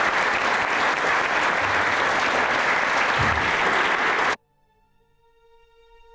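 Audience applauding steadily, cut off abruptly about four seconds in. Soft music with sustained notes then fades in.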